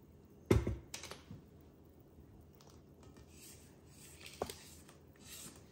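A sharp knock about half a second in, then a few light taps and soft scraping of a spatula against the stainless steel bowl of a stand mixer, the mixer itself switched off.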